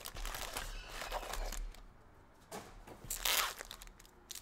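Foil wrappers of Donruss Basketball trading-card packs crinkling as the packs are handled, then a pack wrapper ripped open in one loud burst about three seconds in.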